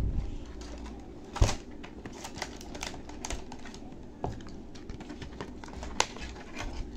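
Plastic baby-wipes tub being handled: scattered clicks and light rustling as a wet wipe is pulled out of the tub and the red plastic lid is brought down onto it. The sharpest click comes about one and a half seconds in, another about six seconds in.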